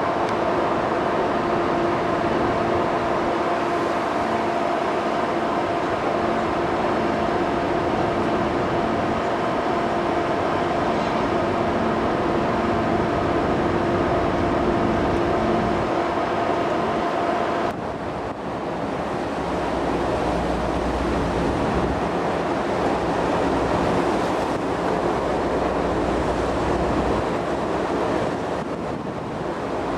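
Steady drone of a ferry's engines and machinery, with a few fixed tones. About two-thirds of the way through it changes abruptly to the rush of wind and sea, with low buffeting of wind on the microphone.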